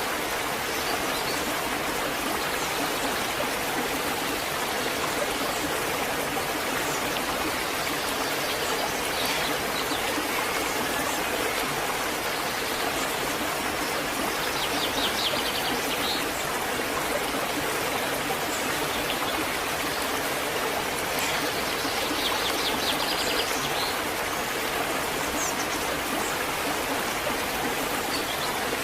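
Waterfall rushing steadily, an even wash of falling water. A bird chirps briefly about halfway through and again about two-thirds of the way in.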